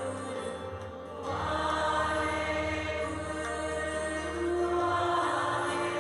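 Meditation music: a mantra chanted by voices over sustained chords and a low drone. The harmony changes about a second in.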